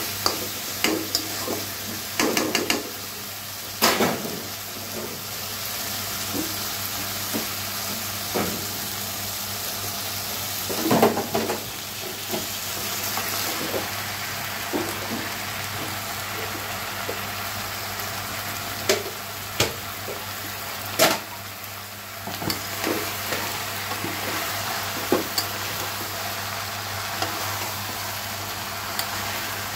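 Chicken frying and sizzling in spiced masala in a karahi, stirred with a wooden spatula that scrapes and knocks against the pan every few seconds. Partway through, sliced bottle gourd is tipped into the pan.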